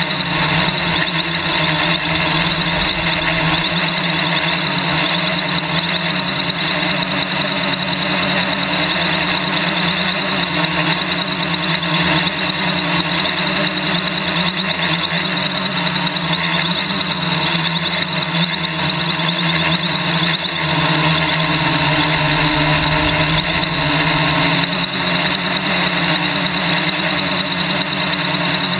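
Quadcopter motors and propellers droning steadily in flight, heard from a camera mounted on the frame. Underneath runs a low buffeting rumble of wind, strongest near the start and about twenty seconds in, which the owner puts down largely to prop wash.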